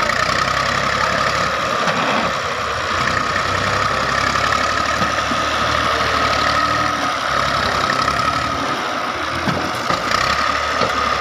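Massey Ferguson 240 tractor's three-cylinder Perkins diesel engine running steadily while pulling a heavily loaded trolley, with a steady high whine running through it.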